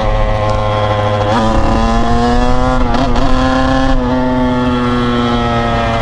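Kawasaki KX100 two-stroke single-cylinder dirt bike engine running while riding. Its pitch jumps up about a second and a half in, dips and picks up again around three and four seconds in, and sags slowly in between.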